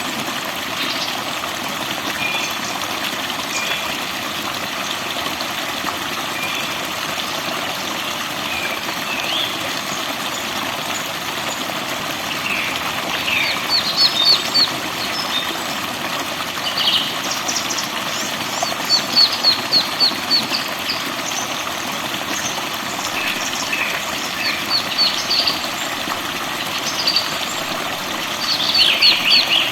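Forest birds chirping and singing over a steady rush of running water. Several quick runs of repeated notes stand out, the loudest near the end.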